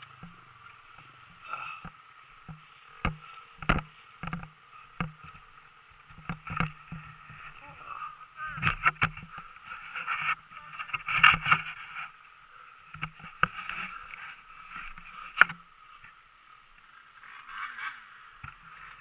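Dirt bike engine running unevenly, with many sharp knocks and clicks scattered throughout. The loudest knocks come in the middle and a few seconds before the end.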